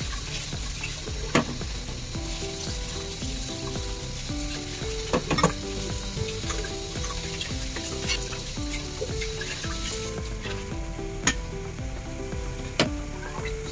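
Tap water running into a stainless steel sink while dishes are washed, with several sharp clinks of china bowls and a glass teapot knocking together.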